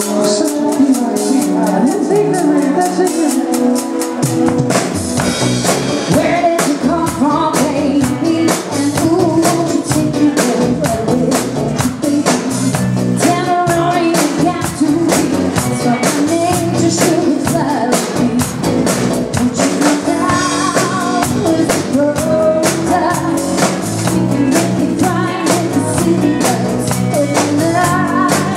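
A live rock band playing: a woman singing lead over electric guitars and a drum kit. The bass and cymbals fill in about four seconds in.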